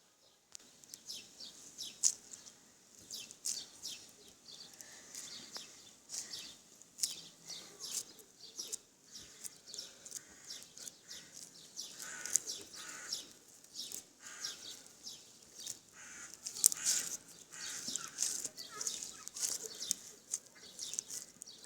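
Slime being squeezed and worked by hand, making many small, irregular clicks and pops.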